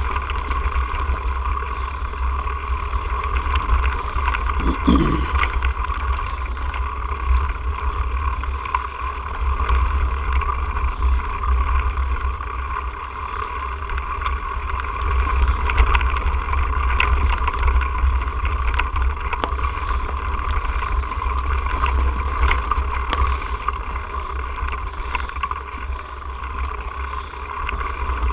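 Mountain bike riding over a rough dirt singletrack, heard from a camera mounted on the bike: a steady rumble of wind and vibration on the microphone with tyre noise and scattered knocks and rattles from the trail. A brief rising sound about five seconds in.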